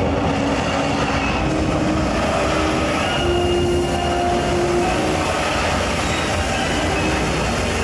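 Heavy machinery rumbling steadily, with drawn-out metallic squeals rising over it now and then.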